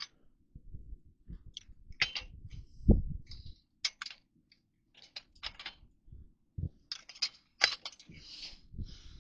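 Footsteps crunching through deep snow: irregular crisp crunches and squeaks as legs push through the snowpack, with a heavier low thump about three seconds in.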